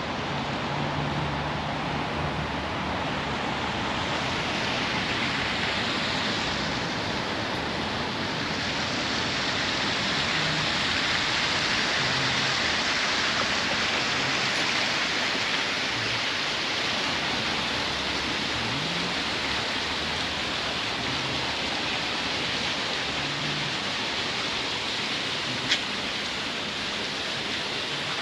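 Steady rush of splashing water, with one sharp click near the end.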